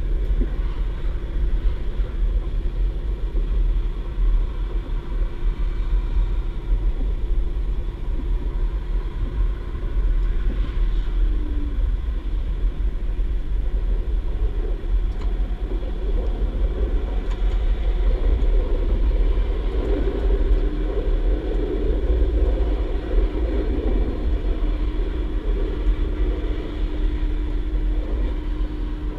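DB Class 612 diesel multiple unit heard from inside the passenger cabin while under way: a steady low rumble of running gear and track with the diesel engine's hum running under it.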